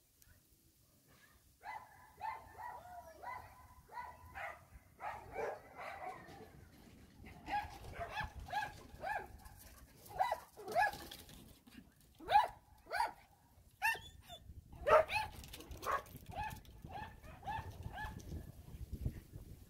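Dogs barking repeatedly in quick runs of a few barks a second, starting about two seconds in and stopping shortly before the end. A few louder barks come about two-thirds of the way through.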